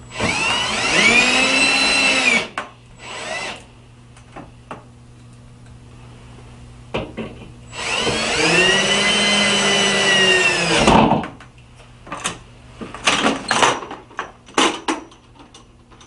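Power drill driving screws into the door jamb: two runs of a couple of seconds each, the motor's whine rising and then falling, with a short burst between them. Several clicks and knocks follow near the end.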